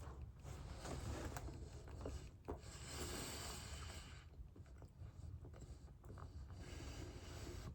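Faint sounds of chewing a donut: small mouth clicks and handling noises, with a brief rustle about three seconds in.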